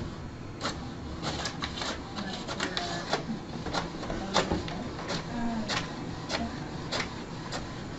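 Desktop printer printing a page: a steady mechanical whir with sharp clicks about every half second to second.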